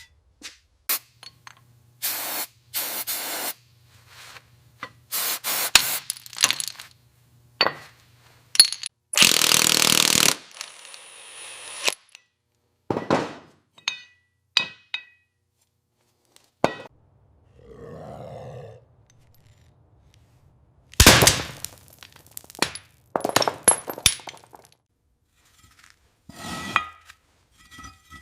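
Workshop sounds of hand tools on motorcycle parts: a string of separate scrapes, clinks and knocks, with a loud rushing burst lasting about a second and a half about nine seconds in.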